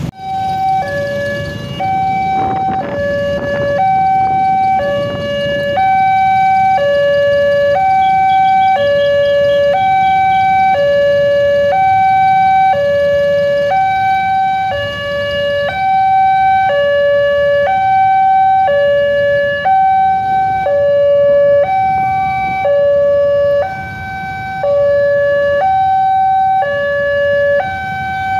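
Indonesian railway level-crossing alarm sounding from its horn loudspeakers: a loud two-tone hi-lo warning, a higher and a lower tone alternating about once a second, over a low rumble of waiting road traffic. It signals that a train is approaching and the barrier is closed.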